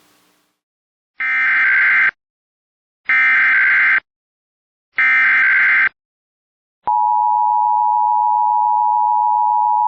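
Emergency Alert System SAME header: three bursts of shrill, warbling digital data, each about a second long and about a second apart. About seven seconds in comes the steady attention tone, which signals the start of a new alert message.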